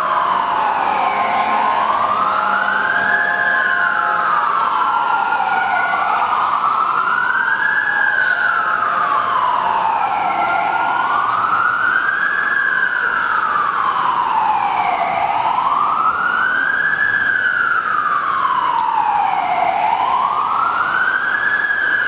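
Emergency vehicle siren in a slow wail, its pitch rising and falling smoothly about once every four and a half seconds, with no change in loudness.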